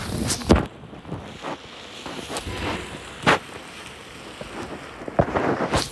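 Camera handling noise with the microphone covered and the sound muffled: rubbing, with a few sharp knocks against the microphone, the loudest about three seconds in.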